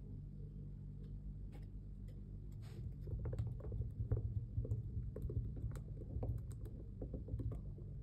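Metal palette knife scraping and tapping texture paste onto a canvas: a run of small, irregular scrapes and ticks that grows busier about three seconds in.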